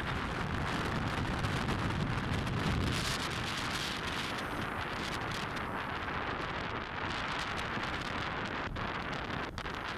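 Wind buffeting the microphone of a camera on a moving bike, with a steady low road rumble underneath.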